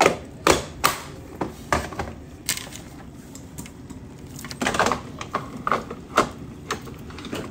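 Hard plastic clicks and knocks from a Ninja Creami ice cream maker's pint bowl: its lid is snapped on and the bowl is knocked into place under the machine. More than a dozen uneven clicks.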